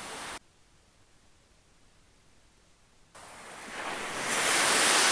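Atlantic surf breaking on rocks, an even rushing wash. It cuts out suddenly about half a second in, leaving near silence for under three seconds, then returns and swells as a wave breaks near the end.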